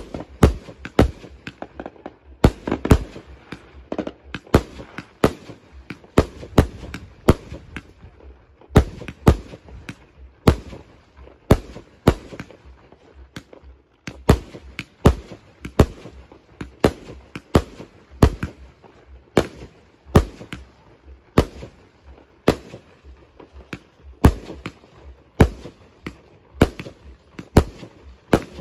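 Aerial fireworks bursting overhead: an irregular run of sharp bangs, about one or two a second, with no real pause.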